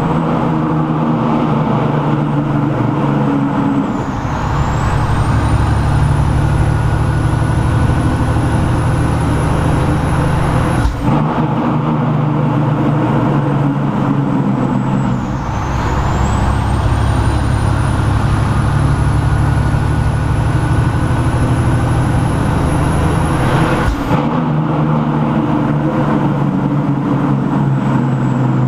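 Semi truck's diesel engine running, heard from inside the cab. Twice the engine pulls harder for about seven seconds with a high whine rising in pitch, then drops back suddenly.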